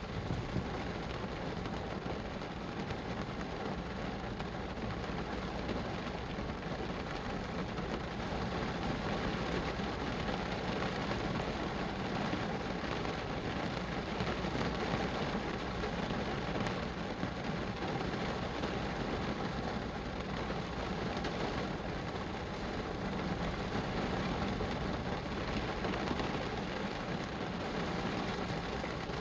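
Steady rain falling, an even, unbroken hiss that holds at much the same level throughout.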